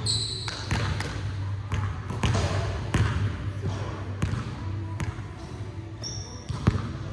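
Basketball bouncing on a hardwood gym floor, a string of irregular thuds about every half second to second, echoing in the large hall. Brief high sneaker squeaks come near the start and again about six seconds in, over a steady low hum.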